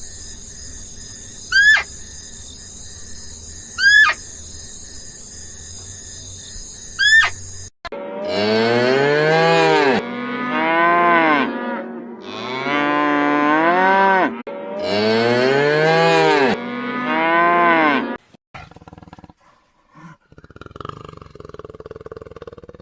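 Bovine lowing: four long, deep moos, each a couple of seconds, starting about eight seconds in. Before them, short sharp calls repeat every two to three seconds over a steady high hiss.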